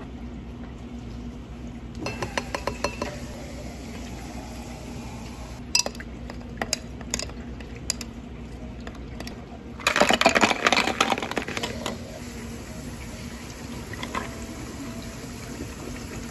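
A long metal spoon clinking against a tall glass as yuja (citron) preserve is stirred with a little hot water: a quick run of clinks, then scattered single clinks. About ten seconds in, a louder burst of clattering as ice goes into the glass.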